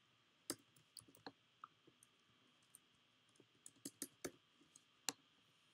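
Computer keyboard keys clicking in scattered, separate taps as a few characters are typed, with a quick cluster of keystrokes about halfway through.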